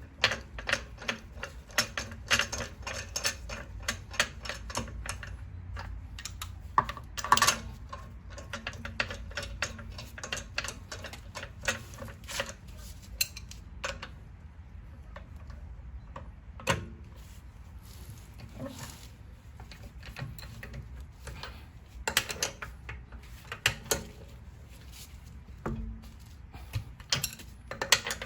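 Socket ratchet clicking as the wheel's lug bolts are run in: a fast run of clicks over the first five seconds or so, then scattered clicks and metal knocks.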